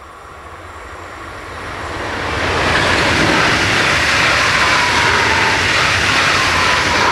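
Stadler FLIRT electric multiple unit passing through a level crossing: the rush of its wheels on the rails swells over the first couple of seconds, then holds loud and steady. A thin whine falls slightly in pitch as the train goes by.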